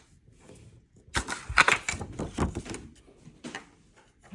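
A quick run of sharp plastic clicks and knocks, then a few fainter ones, from a 3D-printed plastic sheet-film developing reel being handled and pushed open.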